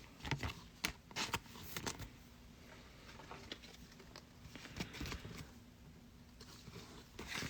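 Faint clicks and light rustling of trading cards and pack wrappers being handled, with a cluster of sharp ticks in the first two seconds and a few more about five seconds in.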